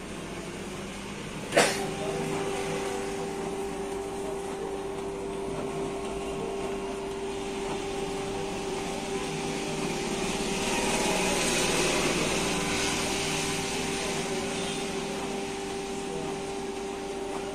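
Canon G-series inkjet printer running its mechanism: a sharp click, then a steady motor hum with extra whirring that swells a little past the middle and eases off again.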